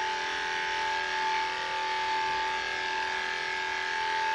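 Cordless electric dog-grooming clippers running with a steady, even motor hum, held against a terrier's coat.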